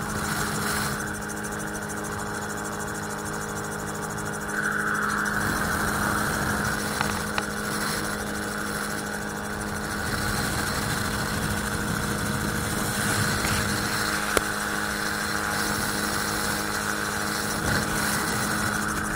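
Magni M16 autogyro in flight: its engine and pusher propeller running with a steady drone, mixed with wind rush in the open cockpit. The sound swells a little about four and a half seconds in and again around thirteen seconds.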